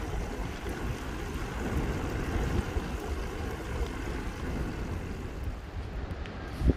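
Steady outdoor rushing noise with a fluctuating low rumble, wind buffeting the microphone over water, with a brief thump near the end.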